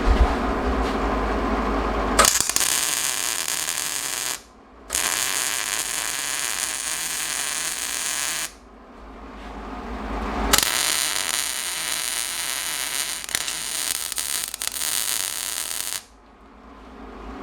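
MIG welder laying three separate beads on steel with a steady crackling buzz; each run starts and stops abruptly, lasting roughly two, three and a half and five seconds.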